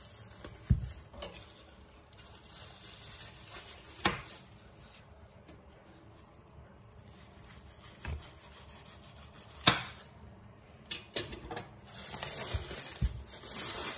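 Plastic cling film rustling and crinkling as it is peeled off a hard, frozen biscuit-cake log on a wooden cutting board, with a few sharp clicks and knocks scattered through, the loudest about ten seconds in.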